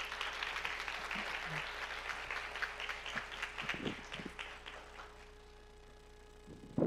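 Audience applauding, fading out after about four seconds. A few short knocks near the end.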